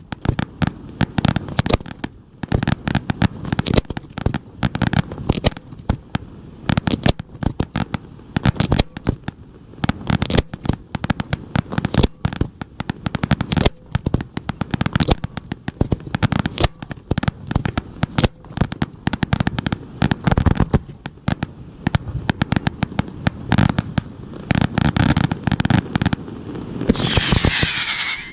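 Giordano aerial fireworks display: a rapid, continuous barrage of shell bursts and loud bangs overlapping one another. Near the end, a brief dense crackling hiss.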